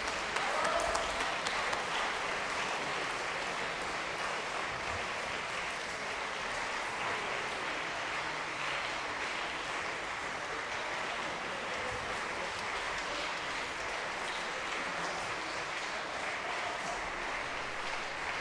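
Concert hall audience applauding: dense, steady clapping from a large crowd, slightly louder in the first couple of seconds.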